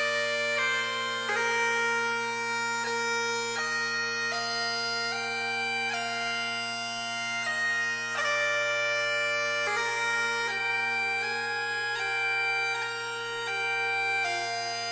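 Highland bagpipe music: a tune played on the chanter, note changing to note, over steady unbroken drones.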